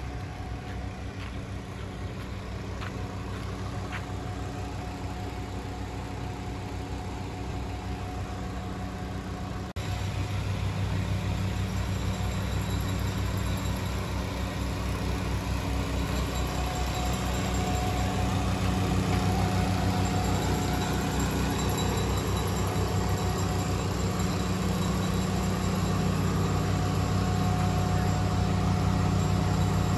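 Motor vehicle engine running steadily under a haze of road noise. About ten seconds in, it abruptly becomes louder.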